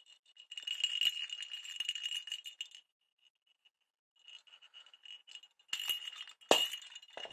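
Small bell inside a hollow plastic cat ball toy jingling as the ball is shaken, in two spells of a couple of seconds with a short gap between. A sharp knock sounds near the end.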